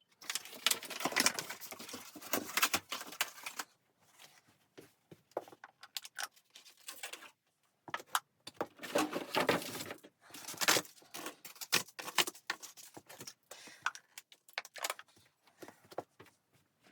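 Irregular rustling, crunching and clinking in bursts, with short pauses, like things being handled at close range.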